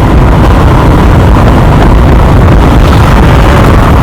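Heavy wind buffeting on the microphone of a moving motorcycle, with the engine and road noise underneath. It is very loud and steady.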